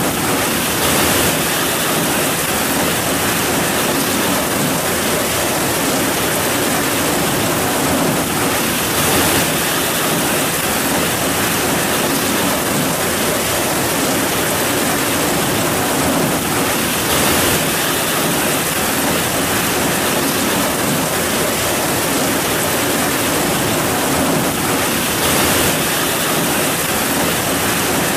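Heavy rain falling steadily: a dense, even hiss that swells slightly about every eight seconds.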